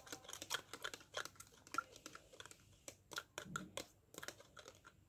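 A spoon stirring sugar into water in a clear plastic cup: faint, irregular clicks and taps of the spoon against the cup.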